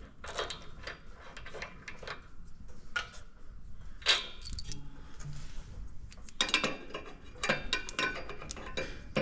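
Small metal clinks and ticks as a hand wrench turns a nut off a threaded eyebolt, and the bolt is then worked loose from its bracket. It is the mount for a mower deck's lift-assist spring. The clinks come scattered, then in a busier run about six to eight seconds in.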